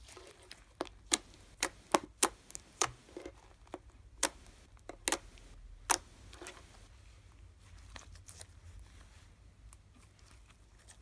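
Thick, fluffy slime (pearl slime mixed with shaving cream) popping and clicking as fingers stretch and poke it. There are about a dozen sharp pops in the first six seconds, then only faint sounds.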